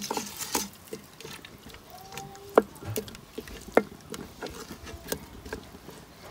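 Wooden spatula stirring a thick fish-and-sugar mixture in a stainless steel stockpot, with scattered light clicks and scrapes as it knocks the pot, and two sharper knocks about two and a half and nearly four seconds in.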